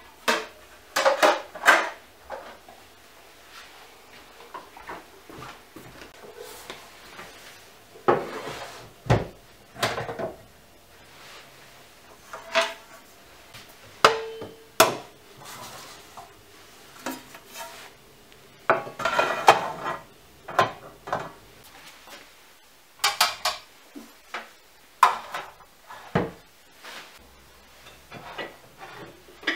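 Ceramic pots, glass jars and a baking dish being set down and shifted on wooden cupboard shelves: irregular clinks and knocks, a few ringing briefly.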